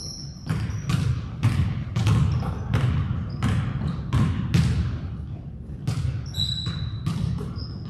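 A basketball being dribbled on a gym floor, about two bounces a second, with short high squeaks from sneakers.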